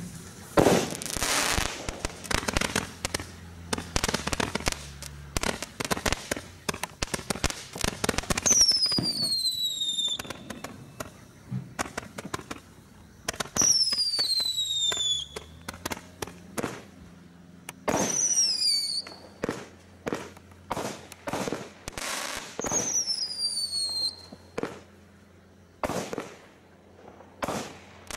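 Fireworks from a Bright Star Dam Busters barrage pack going off: a fast run of bangs and crackling, then four whistles, each falling in pitch over a second or so, among scattered bangs and crackle bursts.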